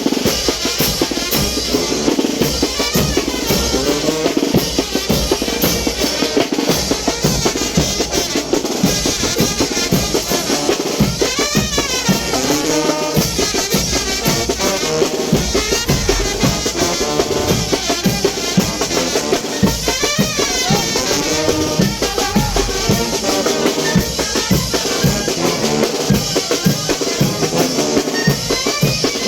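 Live Mexican brass band playing chinelo brinco music, with snare drum, bass drum and cymbals driving a fast, steady beat under the brass.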